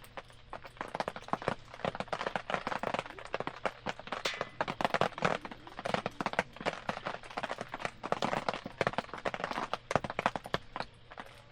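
Wood campfire crackling, with dense irregular snaps and pops of varying loudness.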